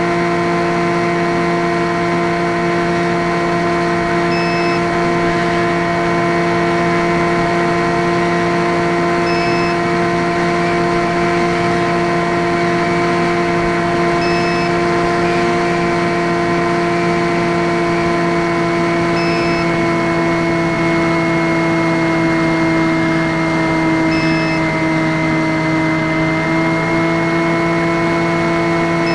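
Skywalker X5's electric pusher motor and propeller running steadily in flight, a steady droning hum that drops slightly in pitch about twenty seconds in. A short faint high pip sounds about every five seconds.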